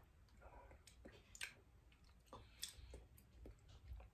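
Near silence with faint, scattered mouth clicks of a person chewing a bite of breaded chicken tender.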